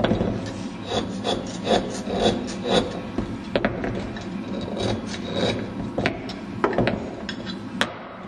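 Hand chisel scraping and chipping Ogatsu slate as an inkstone's well is carved. The short rasping strokes come about two a second at first, then more unevenly, with a few sharp clicks later on.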